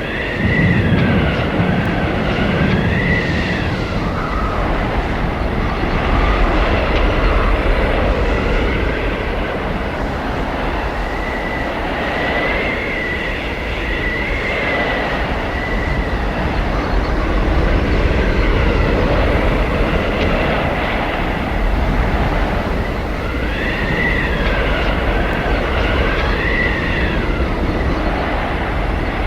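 Howling blizzard wind: a steady low rumble with whistling gusts that rise and fall in pitch every few seconds.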